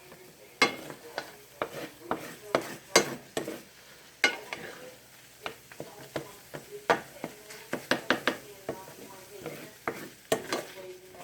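Scrambled eggs being stirred and scraped in a frying pan: a utensil clicks and scrapes against the pan again and again at an irregular pace, over a light sizzle.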